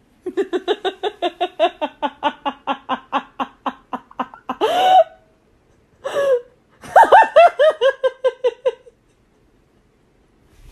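A person laughing hard in a long run of rapid pulses, about five a second, broken by two louder rising cries in the middle, then another run of laughs that fades out.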